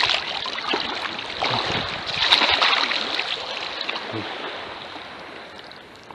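Shallow seawater splashing and sloshing around hands as a freshly caught fish is cut and rinsed, in uneven bursts that die away toward the end.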